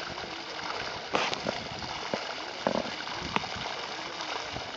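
Water gushing out of a solar pump's discharge pipe and splashing into a pool in a dirt channel: a steady rushing splash, with a few brief sharper noises about a second in and in the middle.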